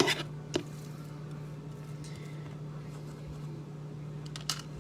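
Two light knocks about half a second apart, then only a steady low hum.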